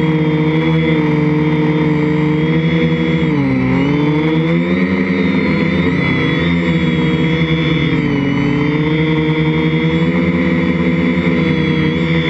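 IRIS quadcopter's electric motors and propellers whining steadily, heard from its onboard camera. The pitch dips and climbs back a few times as the motor speeds change, most deeply about three and a half seconds in.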